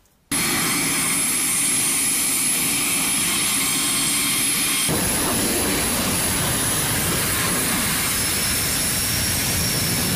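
Rolls-Royce AE 2100D3 turboprop engines of a Marine KC-130J Hercules running on the ground: a loud steady roar with a high turbine whine. It starts abruptly, gets heavier and deeper about five seconds in, and a second, lower whine joins it near the end.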